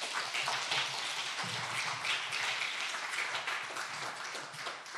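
Audience applauding: dense clapping that begins to thin out near the end.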